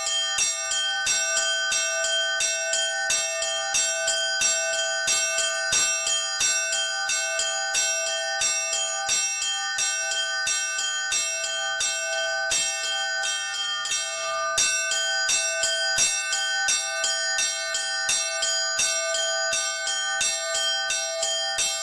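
Orthodox church bells rung by a single bell ringer, a rapid, even run of strikes, several a second, over bells that keep ringing.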